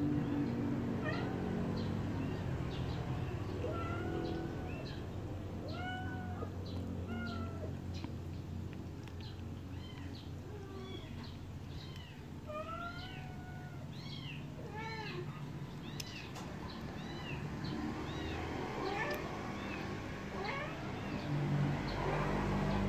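Young kittens mewing: many short, high, thin mews in quick runs, over a steady low hum.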